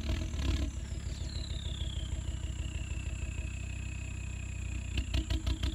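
Electric drive of RC scale crawler trucks: a high motor-and-gear whine that falls in pitch early on and then holds steady as the trucks creep over rocks, over a low rumble, with a quick run of sharp knocks about five seconds in.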